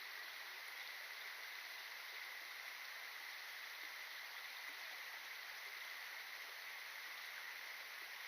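Steady rushing of flowing water, even and unbroken, with a faint high hiss.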